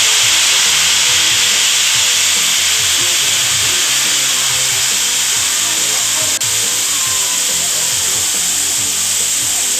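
Water pressurized to about 400 psi jetting through a liquid rocket motor during a flow test: a loud, steady hiss that starts abruptly and keeps going, with a brief click about six seconds in.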